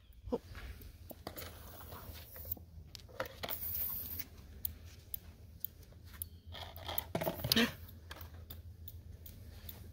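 A stressed bat in a plastic tub clicking: rapid, irregular sharp clicks, with a few louder scrapes and knocks between them.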